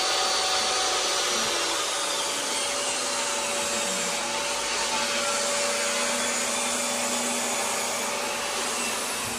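Electric motor running steadily with a whine, dying away right at the end.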